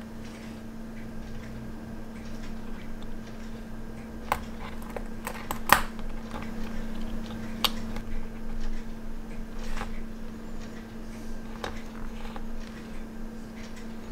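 A handful of sharp, separate clicks and taps as a quartz watch movement is handled and clamped in a metal movement holder, over a steady low hum.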